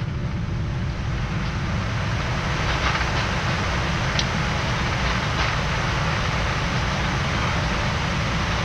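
Steady rumble on a Boeing 787 Dreamliner's flight deck during the landing roll, with the speedbrakes up and the engines in reverse thrust.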